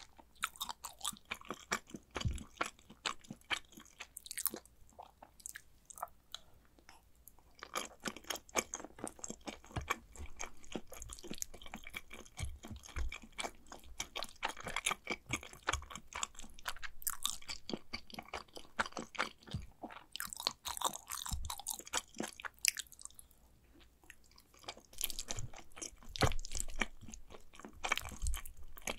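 A person chewing mouthfuls of macaroni and cheese: a dense run of small wet mouth clicks, with a couple of short pauses.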